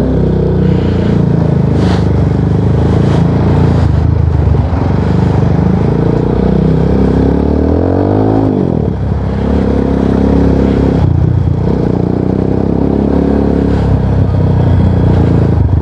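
Exhaust of a Rusi Sigma 250 motorcycle through an aftermarket LeoVince muffler, running steadily while riding on the road. The engine note bends in pitch briefly about eight seconds in, then settles again.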